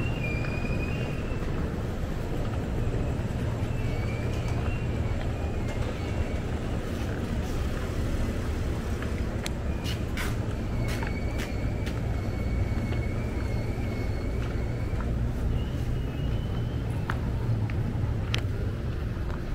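Steady outdoor crowd and traffic ambience: a constant low rumble of vehicles and people on the move. Scattered sharp taps come around the middle, and faint high wavering tones come and go.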